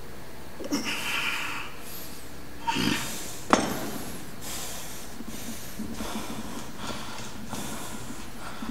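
A man breathing hard and forcefully through the effort of heavy dumbbell curls. A few loud, sharp exhalations come in the first four seconds, the sharpest about halfway through. Then quicker, shorter breaths follow, roughly one every second.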